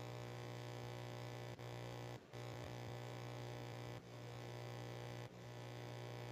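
Faint, steady electrical mains hum with a stack of evenly spaced overtones, cutting out briefly four times.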